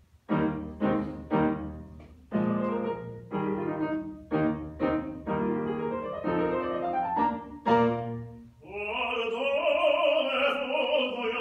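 Grand piano accompaniment opening with a series of separately struck chords and a rising run. Then an operatic baritone voice comes in about nine seconds in, holding a long note with vibrato.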